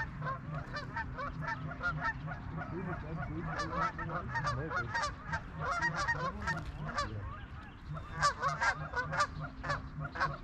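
A large flock of snow geese calling, a dense overlapping chatter of many short, high-pitched honks.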